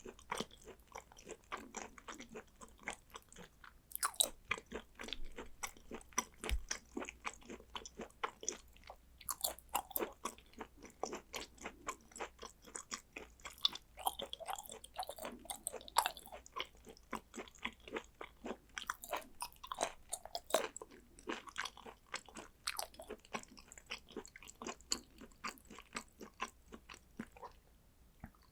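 Close-miked chewing and eating: rapid, wet clicking and smacking mouth sounds of someone eating raw Korean beef with sea urchin roe, tailing off near the end.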